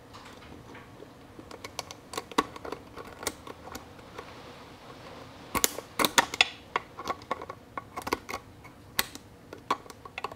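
Snap ring pliers and a steel snap ring clicking and snapping as the ring is worked onto a shaft end in a T5 transmission's aluminium case. The clicks come irregularly, with the loudest bunch about halfway through.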